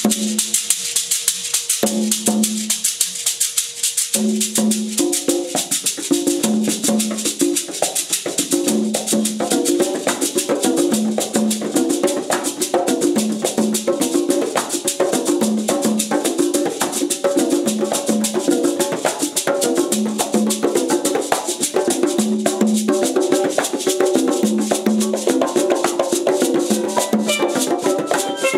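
Live Afro-Latin hand percussion: congas slapped and struck by hand in a repeating rhythm, with a beaded gourd shekere shaking a steady rattle over it. The drums play sparsely at first and settle into a continuous groove about four seconds in.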